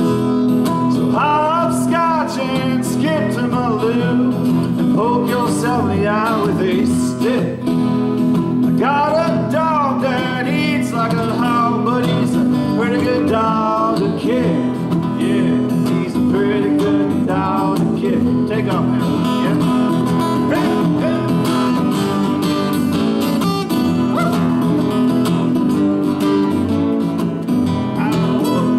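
Acoustic guitars strumming a country-folk song, with a voice singing over them.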